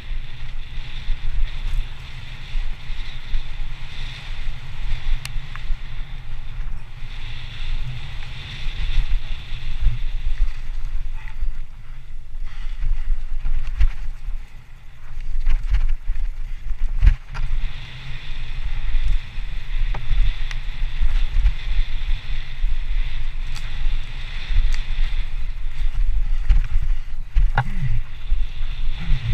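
Wind buffeting a camera microphone on a mountain bike riding fast down a dirt trail, over a continuous rumble of tyres on the ground and occasional knocks as the bike hits bumps.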